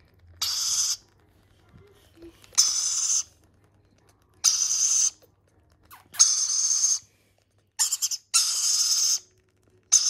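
Baby rainbow lorikeet chicks giving hissing, rasping begging calls during spoon-feeding: about six calls, each under a second long, a second or two apart.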